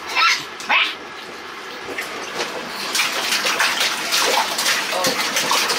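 Water splashing in a small bathtub as a toddler slaps and churns it, growing louder and more continuous from about two seconds in. Two short, high, rising squeals from the child come in the first second.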